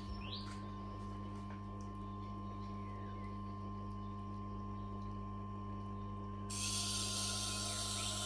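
Tormek T8 wet grinder running with a steady hum. About six and a half seconds in, a steady high hiss starts as the knife's edge is set against the turning grindstone to grind the second side of the bevel.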